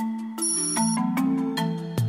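Background music: a bright melody of short struck notes with sharp starts, the pitch changing every few tenths of a second, with a brief high chime early on.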